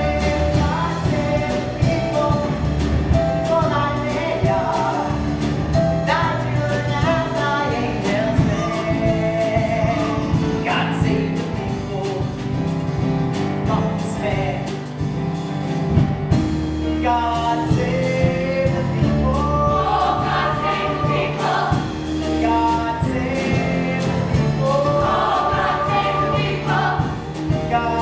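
A stage-musical cast singing in chorus over live band accompaniment, a gospel-flavoured rock musical number.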